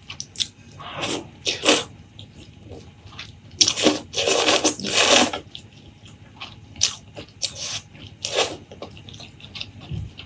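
Close-miked eating: irregular crunching and chewing bites, with a longer, louder stretch of eating noise about four to five seconds in.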